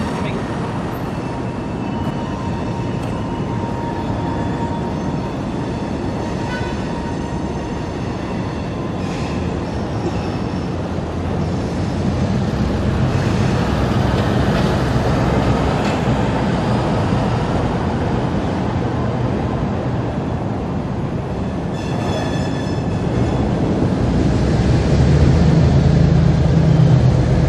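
EMD NW2 switcher's V12 diesel engine running as the locomotive approaches, its low drone building and growing loudest near the end. It runs over steady city traffic noise, with a delivery truck passing about halfway through.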